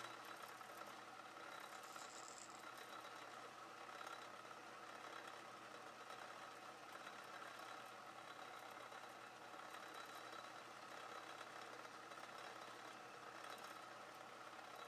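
Atlas 10-inch turret lathe running at a steady speed while a drill held in the turret is fed into the spinning collet blank.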